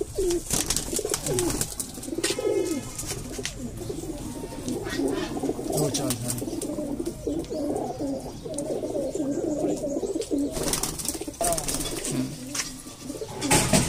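A flock of domestic pigeons cooing, many birds overlapping in a continuous wavering chorus, with scattered short clicks and rustles.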